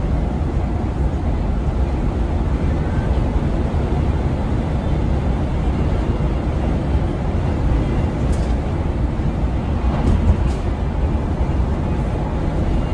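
Steady low drone of a Mercedes-Benz Travego coach cruising at motorway speed, heard in the driver's cab: engine and road noise, with a few faint clicks about two-thirds of the way through.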